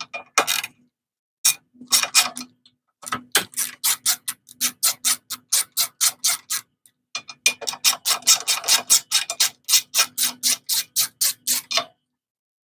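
Hand ratchet with a T30 Torx bit clicking rapidly, about four clicks a second with a few short pauses, as it backs out an intake manifold bolt on a Tecumseh snowblower engine.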